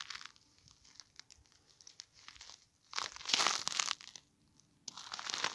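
Crisp crunching and crinkling in a few bursts, the longest about a second, as a frozen line and small gill net are hauled by hand up through an ice-fishing hole.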